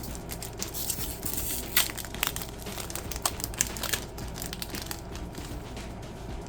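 Gundam Duel Company card pack wrapper being crinkled and torn open by hand: a run of sharp crackles that thins out after about four seconds.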